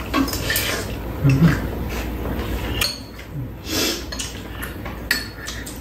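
Spoons and metal chopsticks clinking and scraping against bowls and a pan during a meal, with a few sharp clicks spread through. A brief murmured voice a little over a second in.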